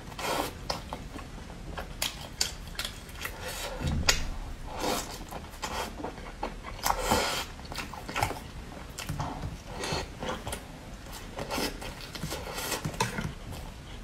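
Close-up mouth sounds of biting into and chewing a broth-soaked fried dough stick (youtiao): irregular soft wet smacks and bites, with louder moments about 4 and 7 seconds in.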